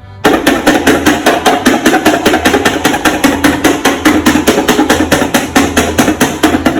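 A rapid, even run of sharp wooden-sounding knocks or taps, about six a second, starting just after the beginning.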